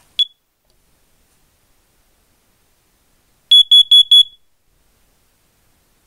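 First Alert CO400 carbon monoxide alarm's piezo sounder being tested by its button: one short chirp right at the start, then about three seconds later four quick, loud, high-pitched beeps, the four-beep pattern that signals carbon monoxide.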